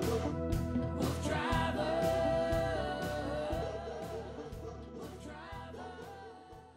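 The end of a pop-rock song: a steady drum beat and a long, wavering sung note, fading out over the last few seconds.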